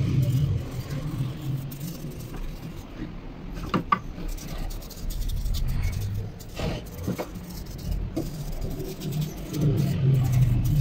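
A paintbrush scrubbing dark wood stain onto wooden hanger racks, with scratchy brush strokes and a few light knocks of wood. A low rumble swells at the start and again near the end.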